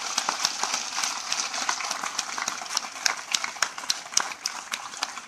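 Audience applauding: many hands clapping irregularly, thinning out toward the end.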